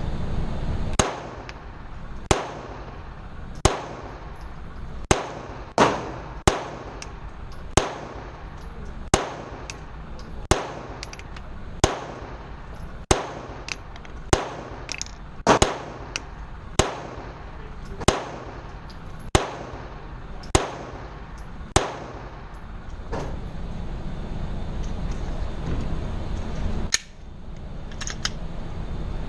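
Glock 17 Gen 5 9mm pistol firing about twenty single shots at a slow, steady pace, roughly one every second and a half with a couple of quicker follow-ups. The shooting stops a little over twenty seconds in, leaving a steady low rumble.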